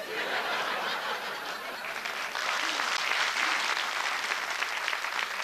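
Studio audience applauding after a punchline, a dense steady clapping that swells a little about two seconds in.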